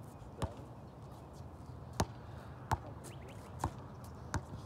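A basketball bouncing on a hard court: five thumps at uneven spacing, as in dribbling.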